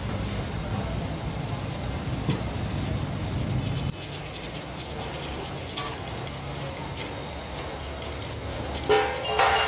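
Mutton keema simmering in a steel karahi, crackling and popping over a steady low rumble. A brief pitched call comes near the end.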